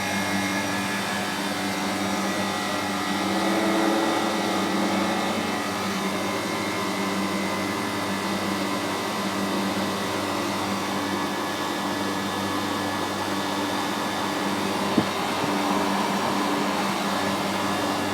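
Fabdec condensing unit with its Bristol compressor running steadily after its start relay and capacitors were replaced: a steady hum over an even rushing noise. One sharp click about fifteen seconds in.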